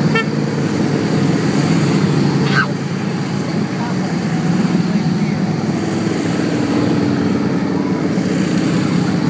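A steady stream of cruiser and touring motorcycles riding past one after another in a procession. Their engines blend into a loud, continuous low drone.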